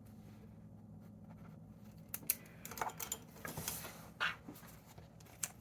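Paper being handled: rustling, crinkling and small clicks starting about two seconds in, over a faint steady low hum.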